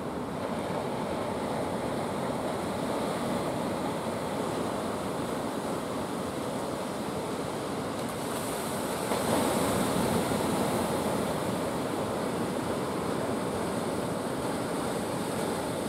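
Ocean surf washing steadily, with a louder wave breaking about nine seconds in.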